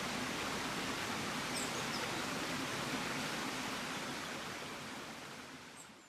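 Steady rushing of a waterfall and stream, an even wash of water noise, fading out over the last second or so. A few faint high chirps sound over it about one and a half seconds in and again near the end.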